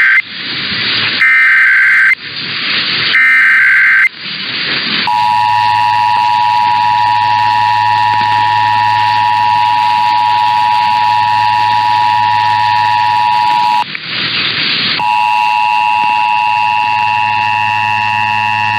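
Emergency Alert System test signal: three bursts of about a second each of SAME digital header tones, with radio hiss between them. Then the steady two-tone EAS attention signal sounds. It drops out to hiss for about a second part-way through, then resumes.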